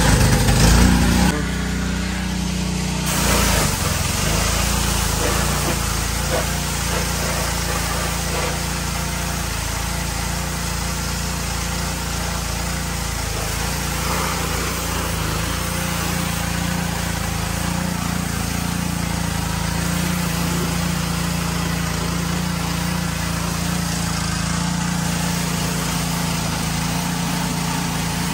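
Pressure washer running steadily: a constant motor hum under the hiss of its water jet spraying.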